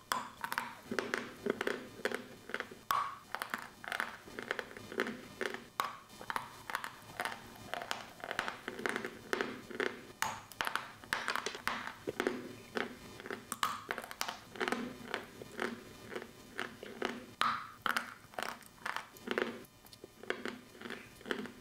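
Close-up bites and chewing of a block of chalk: a steady run of crunches, several a second, as it is bitten and ground between the teeth.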